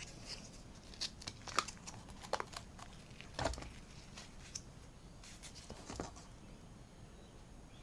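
Scattered soft clicks and light rustles of acrylic paint bottles and cups being handled while colours are picked and poured.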